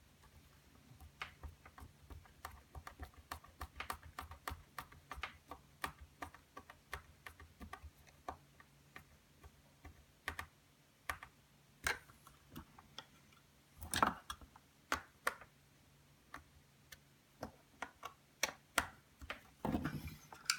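Irregular small clicks and taps from small screws and ABS plastic case parts being handled and fitted together, with a denser run of clicks about two-thirds of the way in, over a faint steady low hum.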